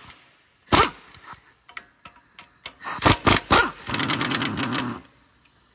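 Metal hand tools knocking against engine parts: one sharp knock, then a quick cluster of knocks, then about a second of rapid ratchet-wrench clicking as bolts are worked loose.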